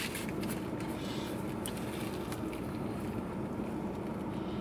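Steady low hum in a car cabin, with faint crunching from chewing a fried chicken sandwich during the first two seconds.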